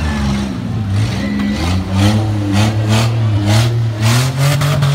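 Minivan engines running and revving in a demolition derby, their pitch rising and falling. From about halfway in, a rapid series of short sharp cracks sounds over the engines.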